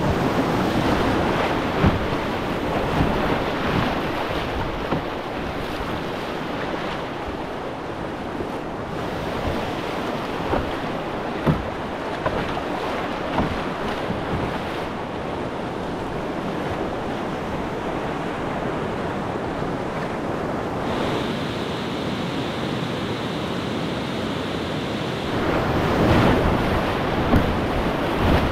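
Whitewater rapids rushing steadily around a canoe as it runs them, with a few short, sharp knocks along the way. The rush grows louder near the end as the canoe drops into the biggest waves.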